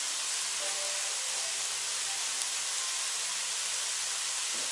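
Pork neck and freshly added onion frying in a kazan: a steady, even sizzling hiss.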